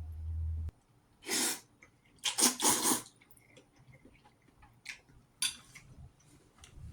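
Breathy slurps of ramen noodles: a short one about a second and a half in, then a louder run of several about two to three seconds in, with small clicks and shorter bursts after. A low steady hum cuts off abruptly early on.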